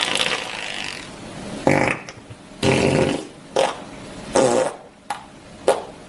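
Fart sound effect played as a run of separate farts: one long one lasting nearly two seconds, then about six shorter ones.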